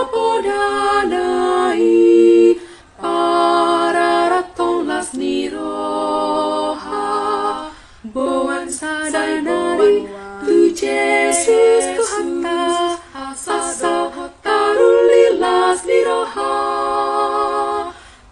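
Women's virtual choir singing a Batak-language hymn a cappella, several voices in harmony. The sung phrases are held for a few seconds each, with short breaths between them.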